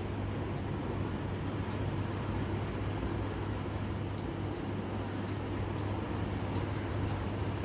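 Steady low hum under continuous background noise, with faint sharp ticks at irregular intervals, roughly one or two a second.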